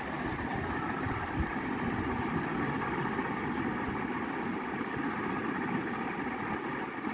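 Steady background rumble and hiss.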